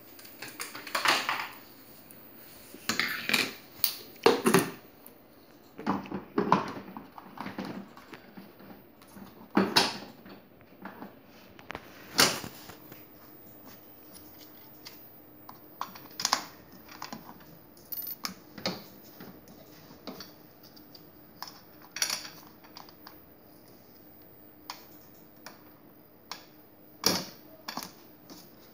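Irregular clatter and knocks of hard plastic parts being handled: the plastic wheels of a battery-powered ride-on toy car picked up and fitted onto its metal axle. The knocks come thick at first and thin out after about twelve seconds, when a faint steady hum comes in.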